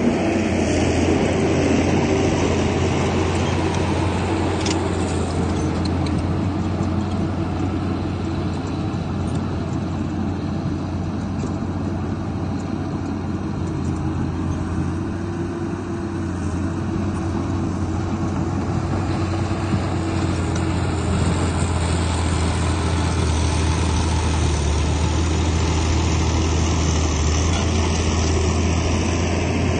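Heavy diesel engine of earthmoving equipment running steadily under work, a continuous low drone whose pitch wavers slightly.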